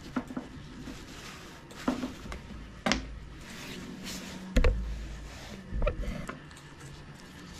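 Handling noise of hands twisting stripped copper wire strands together and setting the cable down on a stone tabletop: scattered small clicks and knocks, the loudest a dull thump about four and a half seconds in.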